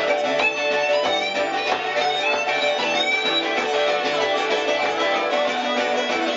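Live acoustic folk band playing an instrumental break: strummed guitar under a quick, ornamented melody line.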